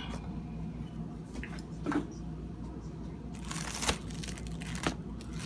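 Phone handling noise as it is set in place, with crinkling plastic wrap on a store-bought pizza and a few light knocks, one about two seconds in and another near the end.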